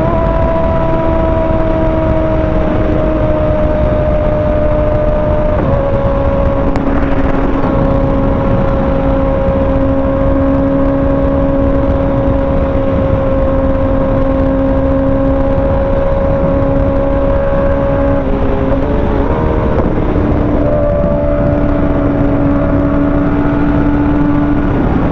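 A Kawasaki ZX-6R's 636 cc inline-four engine running at steady cruising revs under a constant rush of wind and road noise. The engine note steps down about six seconds in, wavers briefly with a few quick changes in pitch around nineteen seconds in, then settles again.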